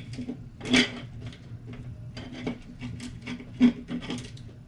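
Small parts being handled on a work surface: a run of light clicks, taps and rubbing, with two louder knocks about a second in and near the end.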